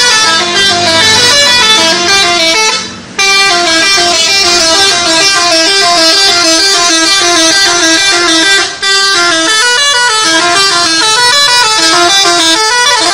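Indonesian bus 'telolet' horn, a multi-tone horn playing a quick tune of stepping notes, loud. There is a short break about three seconds in and a brief dip near nine seconds.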